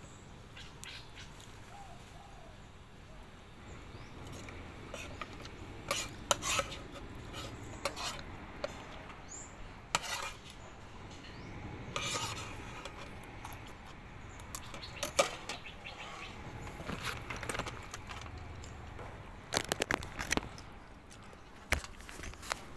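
Metal spoon and fork clinking and scraping against a plate during eating, in irregular sharp clinks every second or few.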